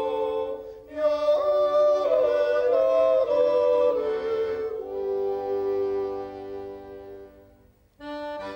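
Music: a slow piece of held notes stepping from one pitch to the next, fading out about seven seconds in, with a new piece starting near the end.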